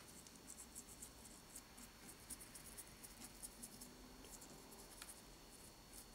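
Faint, irregular scratchy ticks of a small paintbrush's bristles dabbing and scrubbing black wash into the rough surface of a model-railway rock mold, several a second.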